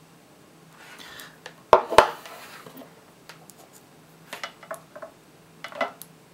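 Cylindrical 18650 lithium-ion cells and multimeter test probes being handled on a tabletop as the probes are pressed to the cell ends: two sharp clicks about two seconds in, the loudest sounds, then a few lighter taps and clicks toward the end.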